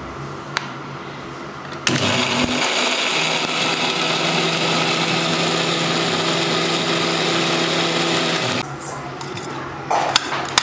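Electric mixer grinder (Indian mixie) with a steel jar running for about seven seconds, grinding cooked tomato and onion into chutney paste; the motor starts about two seconds in and cuts off suddenly near the end. A few light clinks of a spoon against the steel jar follow.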